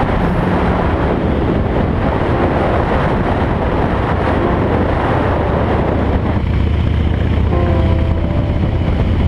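Harley-Davidson V-twin engine running steadily under way, mixed with wind rushing over the handlebar-mounted microphone.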